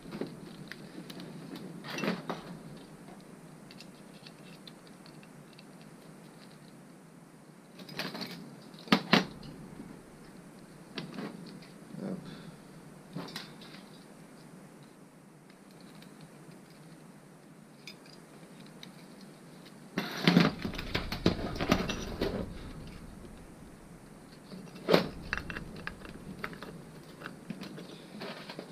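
Small metal engine parts clinking and knocking against each other and the workbench as they are handled, in scattered short clanks with a heavier, longer cluster about two-thirds of the way through.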